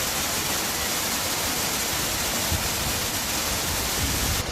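Ouzoud waterfalls crashing: a loud, steady rushing of falling water. Near the end the sound turns duller and a little quieter.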